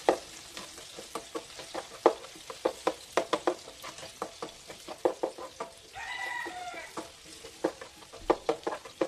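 Chicken pieces sizzling in hot oil in a pan, with a black plastic slotted spatula repeatedly clacking and scraping against the pan as the pieces are stirred and turned. About six seconds in, a brief high-pitched call sounds over it for about a second.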